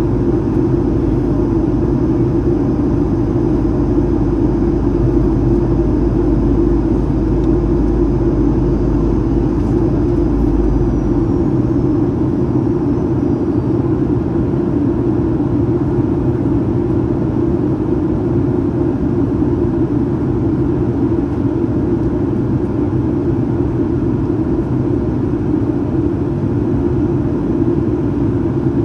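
Steady engine and airflow noise heard inside the cabin of a Boeing 737-800 in flight. About eleven seconds in, a deep low rumble drops away and a faint high whine slides down in pitch and fades.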